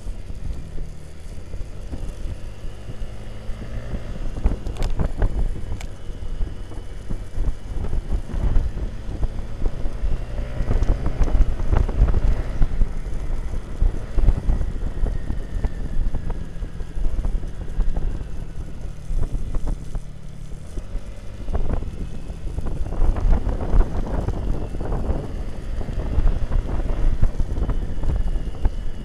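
Motorcycle riding along at speed: wind buffeting the microphone over the steady drone of the bike's engine, swelling louder in gusts a few times.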